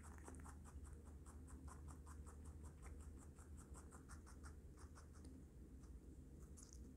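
A baby rabbit chewing chopped lettuce and carrot: a faint, rapid, even crunching at about six chews a second, with a brief rustle of leaves near the end as it noses into the salad.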